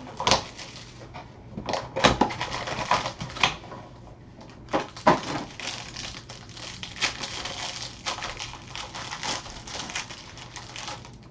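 A trading-card box and its packaging being opened and handled: a quick run of crackles, rustles and clicks, with a few sharper snaps about a third of a second, two seconds and five seconds in.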